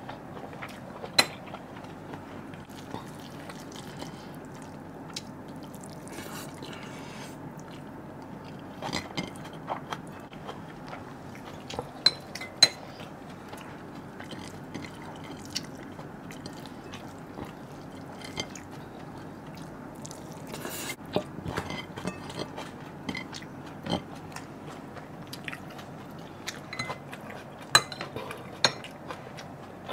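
Close-up eating sounds: chewing and biting on chicken curry and rice, with scattered sharp clinks of a metal spoon against a ceramic plate.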